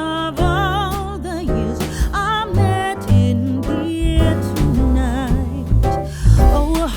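Music: a song with a singing voice, its held notes wavering in vibrato, over instrumental accompaniment with a bass line.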